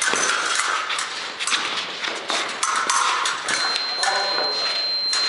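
Épée blades clashing and clicking against each other with quick footwork on a gym floor. About three and a half seconds in, a steady high tone from the electric scoring box sounds and holds, signalling a touch.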